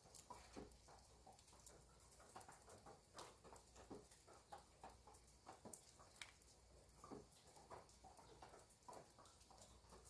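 Faint, irregular patter of rain: scattered drips and ticks a few times a second over a low background hum.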